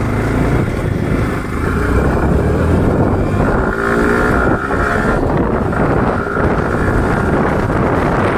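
Yamaha R15 V4 motorcycle under way, its 155 cc single-cylinder engine running beneath steady wind rush buffeting the microphone.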